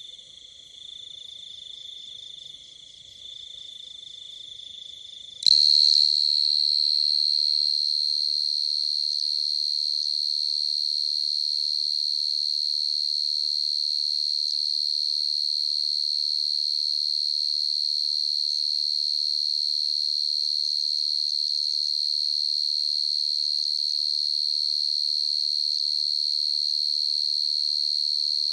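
A dế mèn field cricket (dế cơm) chirping in a continuous high-pitched trill. About five seconds in, it cuts abruptly to a louder, slightly higher, unbroken trill that holds steady.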